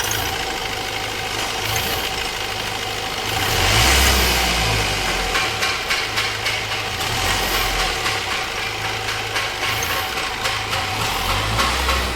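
Mahindra Marazzo's common-rail diesel engine running and being blipped on the accelerator, loudest about four seconds in, with its DRV fuel-pressure valve connector unplugged. With the valve unplugged the engine runs without its 'tk tk' knock.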